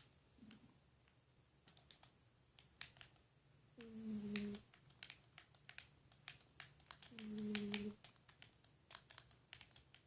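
Domestic cat snoring: two short, low-pitched snores about three seconds apart, each dipping slightly in pitch, with faint clicks in between.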